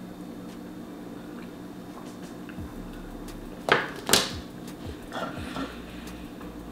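A cinnamon roll being eaten: quiet chewing and mouth sounds over a low steady hum, with two sharp crackly sounds a little past the middle, followed by softer rustling.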